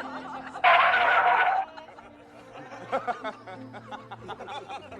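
Snickering laughter, with a loud, harsh outburst lasting about a second near the start, then quieter broken laughing sounds.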